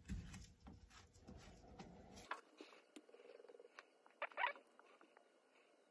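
Faint light ticks and small plastic clicks from a gloved hand uncapping a plastic jug of epoxy resin and pouring it into a plastic mixing cup, with one brief louder handling noise about four seconds in.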